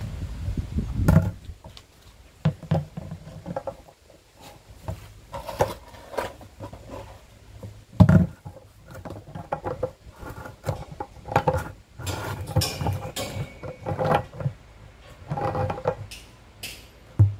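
Irregular clicks, knocks and rattles of adjustable pliers gripping and turning a metal sleeve on the shaft of a plastic drum, with the plastic knocking as it is handled. Sharp knocks stand out about a second in and about eight seconds in.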